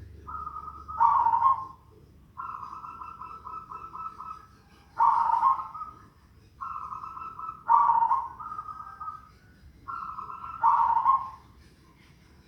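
Zebra dove (perkutut) cooing in repeated phrases: a rapid purring trill followed by a louder coo, four times over, with short pauses between. The bird's song is one its owner calls strange.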